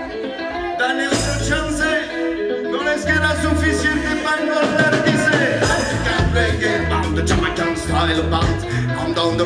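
Live band playing African salsa on guitars, electric bass and drums, with singing. The bass and beat come in about a second in.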